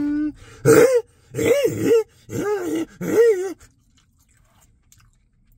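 A man's wordless moans of enjoyment while eating French fries: a held note, then four short moans that rise and fall in pitch in the first few seconds.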